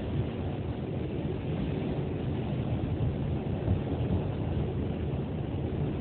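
NYC subway 2 train running at speed, heard from inside the car: a steady rumble of wheels on rails.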